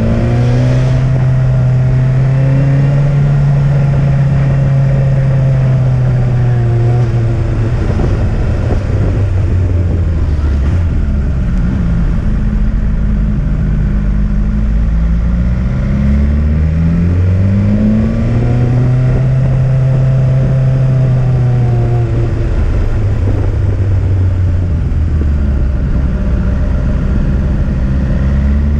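Motorcycle engine pulling uphill along winding mountain-road bends, its note rising and falling twice as it accelerates and eases off, over steady wind and road noise.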